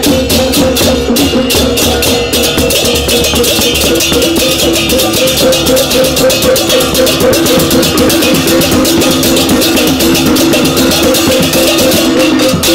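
Balinese baleganjur gamelan playing: fast, dense clashing of ceng-ceng kopyak hand cymbals over kendang drumming, with steady ringing pitched tones from the gong chimes underneath.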